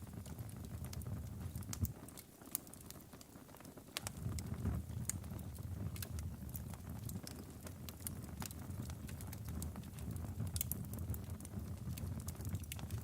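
Log fire in a fireplace crackling, with irregular sharp pops and snaps over a low rumble of burning; the rumble drops away for a couple of seconds early on and then comes back.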